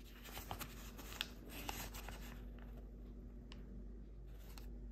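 Wrapper of a momiji manju cake crinkling and rustling as it is handled and peeled open by hand, with a run of sharp crackles in the first two seconds or so and a few more near the end.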